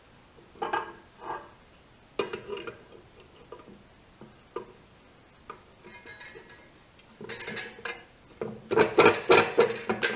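Steel parts of a homemade press-brake die clinking and knocking as the square steel top die is lifted and set onto its spring-loaded guide pins over a stainless steel blank: scattered knocks at first, then denser metal clattering, loudest in the last two seconds.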